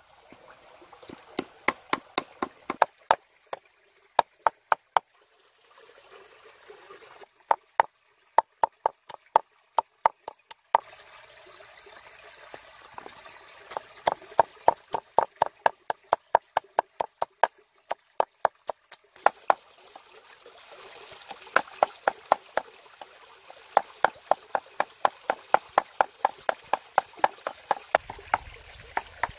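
Cleaver chopping on a wooden board in quick, even strokes, about three a second, mincing fish with chilli and garlic.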